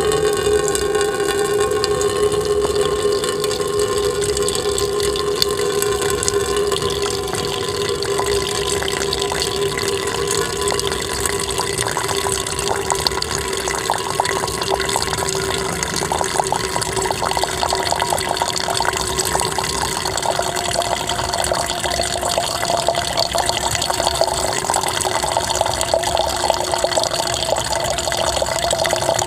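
Salt water pouring steadily out of the end of a tube swallowed into the stomach, splashing down as the stomach drains in dand dhauti kriya. A steady tone runs underneath.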